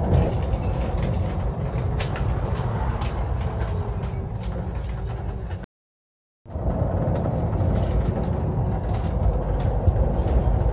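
Moving bus heard from inside: steady engine and road rumble with light rattling clicks. The sound drops out completely for under a second about halfway through, then resumes the same.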